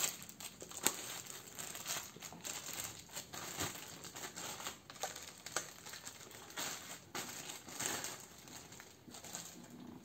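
A small plastic bag crinkling and rustling in the hands as a plastic blender lid is drawn out of it. The rustles are faint and irregular, with scattered small clicks.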